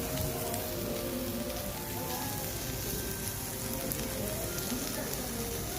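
Minari and pork belly fried rice sizzling on a hot pan: a steady hiss with scattered small crackles.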